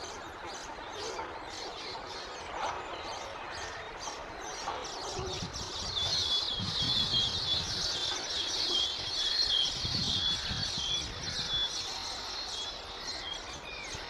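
A colony of baya weavers chattering at their nests: many rapid, high chirps that thicken into a dense, louder twittering chorus from about six seconds in. Occasional low rumbles come and go beneath it.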